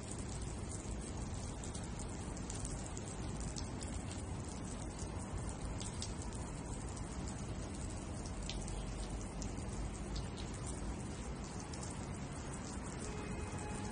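Water spraying from an inflatable unicorn sprinkler's horn and pattering onto a metal gate and wet concrete: a steady hiss of falling drops with many small scattered ticks.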